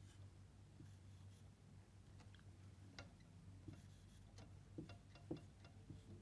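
Near silence: a low steady room hum with faint, scattered light taps and clicks of a marker writing on a board.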